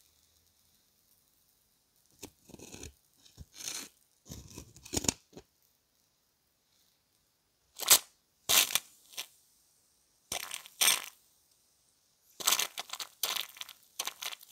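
An aerosol rust remover sprayed through a straw nozzle in a series of short hissing bursts onto a seized, rusted screw head. The bursts are weaker at first and louder from about eight seconds in.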